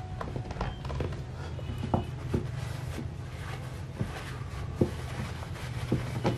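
Mother cat licking her newborn kitten: soft, irregular wet clicks and rustles on the pad, over a low steady hum.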